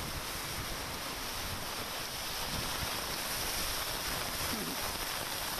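Heavy monsoon rain pouring down in a steady hiss, with wind on the microphone.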